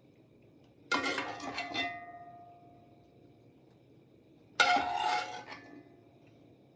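Serving utensil clinking and scraping against dishes and cookware in two short clatters, about a second in and again past the middle, each leaving a brief ring.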